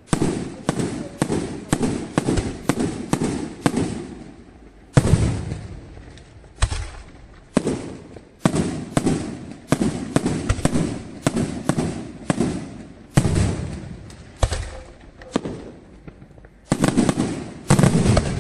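Aerial firework shells bursting in a rapid barrage, about two to three sharp bangs a second, each trailing off in an echoing rumble. There are brief lulls between volleys and heavier booms near the end.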